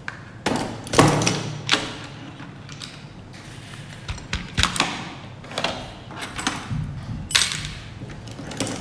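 Metal laboratory stand clamps clinking and clattering against each other and a plastic box as they are rummaged through and lifted out: a series of irregular knocks and clicks, the loudest about a second in.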